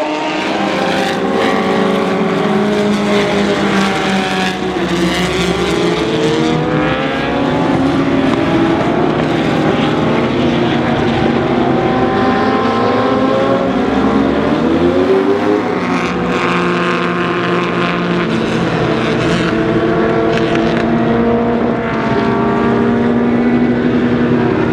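Several vintage racing car engines running hard at once, their overlapping pitches rising and falling with the revs.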